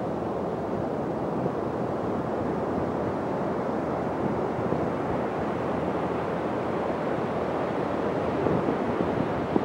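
Steady wash of ocean surf on a beach, an even noise with no distinct breaks, mixed with wind on the microphone.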